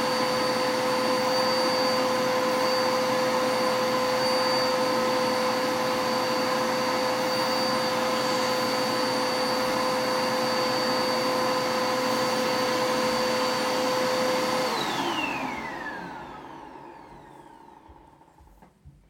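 Dirt Devil vacuum cleaner running steadily with a high whine over its motor noise. About fifteen seconds in it is switched off, and the motor winds down with a falling whine that fades over a few seconds.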